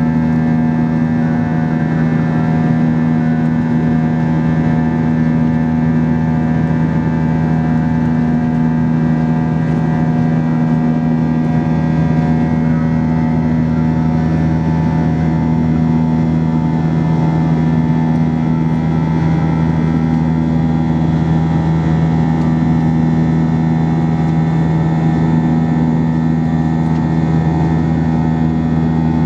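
Airbus A320 cabin noise in flight: the steady drone of its IAE V2500 turbofan engines and the airflow, with a low, constant hum.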